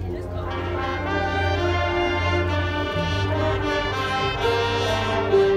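Marching band brass section playing sustained chords that swell over several seconds, with low notes underneath.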